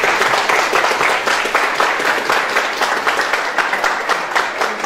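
Crowd applauding, with many hands clapping together in a dense, steady run.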